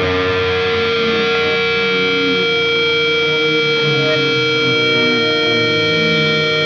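Sludge/post-hardcore music: a long, ringing guitar chord held steady over slowly changing lower notes.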